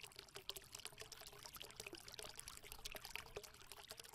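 Faint trickling, bubbling water with a dense run of small irregular clicks and splashes.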